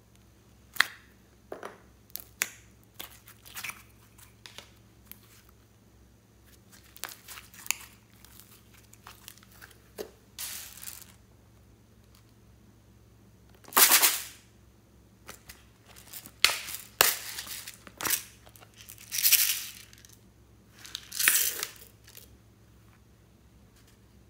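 Slime being handled and mixed by hand, giving irregular sharp pops and clicks with several longer crackling bursts of about a second each.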